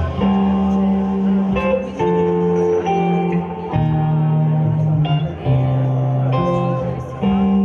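Live instrumental rock from electric guitar, bass guitar and drums. Long held guitar and bass notes change about once a second, with occasional drum and cymbal hits.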